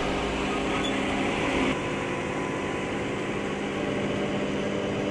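Steady hum of a coastal freighter's machinery, a drone with several steady tones running under the cargo boom as a motorcycle is lifted. A higher hiss eases off a little under two seconds in.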